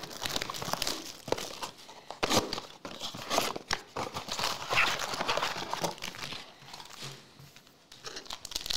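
Cardboard blaster box of Mosaic basketball trading cards being torn open, then its foil-wrapped card packs crinkling and rustling as they are pulled out and handled. The sound is a run of irregular crackles and rips.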